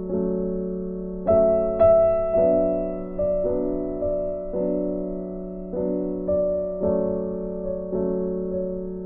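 Background music: a slow, gentle piano tune, with notes struck about once or twice a second and each ringing and fading away.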